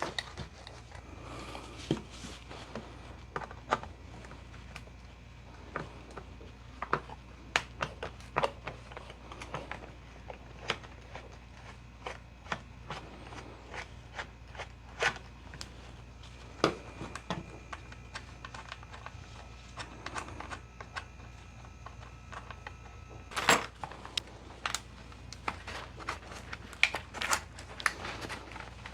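Scattered clicks, taps and knocks of metal and wood as a Finnish M39 Mosin-Nagant rifle is handled and its barrel band worked off, over a steady faint low hum. The loudest knock comes a little over two thirds through, followed by a quicker run of clicks near the end.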